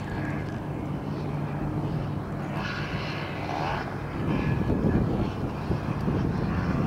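Distant dirt bike engine running as the bike laps a motocross track, a steady hum that grows louder and rougher from about four seconds in.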